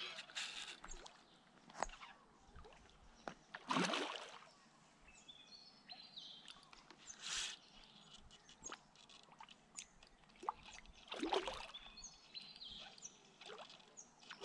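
A hooked carp splashing at the surface of the water as it is played in on a fishing rod, in several separate splashes, the biggest about four seconds in.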